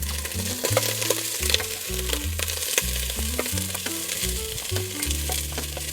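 Pieces of goat leg sizzling as they fry in hot oil with browned onions, stirred in the pan with scattered scraping clicks. Soft background music with low sustained bass notes plays underneath.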